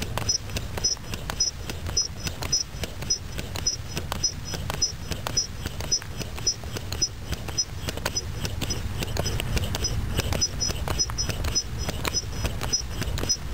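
Foot air pump being worked in steady strokes, a regular click about two to three times a second, pressurizing the air chamber of a pneumatic antenna launcher through its hose.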